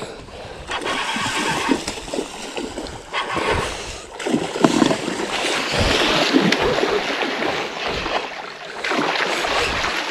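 A hooked king salmon thrashing and splashing at the surface of a shallow river, with rushing, sloshing water; the splashing is heaviest about halfway through and again near the end.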